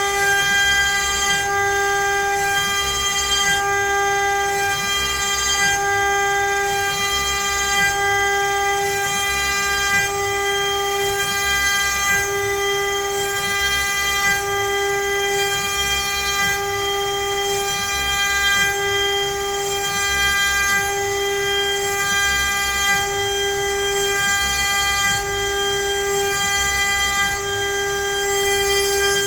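CNC router spindle running steadily as the bit cuts letters into pine, a constant pitched whine with a faint regular pulse.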